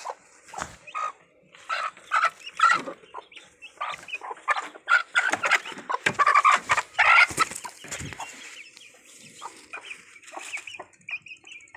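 Domestic hen clucking loudly in quick runs of short calls, mixed with clicks and rustling from close handling.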